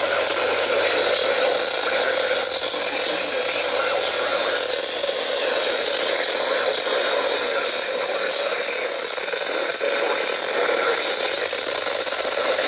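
Steady hiss of radio static, even and unbroken, with no alert tones or clear voice coming through.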